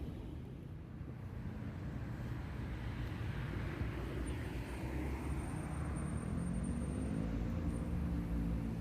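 Vehicle on the move, heard as a steady low road rumble. About halfway through the engine note rises a little and then holds steady as it picks up.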